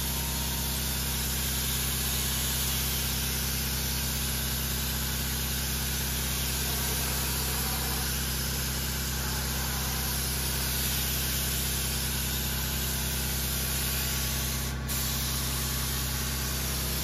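3M Accuspray compressed-air cup gun spraying gelcoat: a steady hiss of air and atomized gelcoat over a steady low machine hum, with a brief break near the end.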